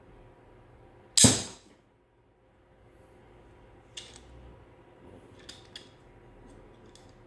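3D-printed crossbow pistol shooting: one sharp, loud snap about a second in as the bow releases, followed later by a few light clicks.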